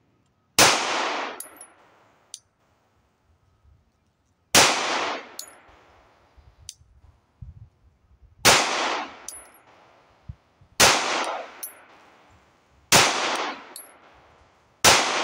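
Six slow, deliberate 9 mm pistol shots from an Arex Delta fitted with a red dot, spaced about two to four seconds apart. Each is a sharp crack with a ringing tail that dies away before the next.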